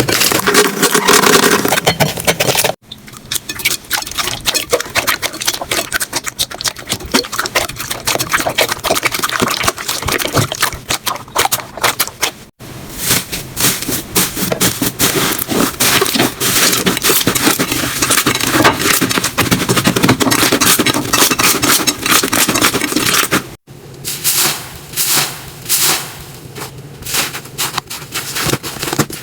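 Slime being squeezed and pressed by hand, giving a dense run of crackles, pops and scraping. It comes as several clips cut one after another. In the last clip the pops come slower and more spaced out.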